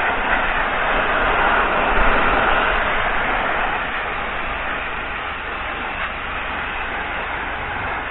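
High-pressure water jet from a washer lance blasting the bottom of a boat's hull: a steady hiss of spray over a low drone, a little louder in the first few seconds.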